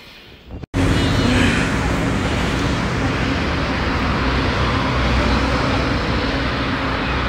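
Road traffic at a wide city intersection: cars and a small truck driving past, a steady rumble of engines and tyres that starts abruptly under a second in.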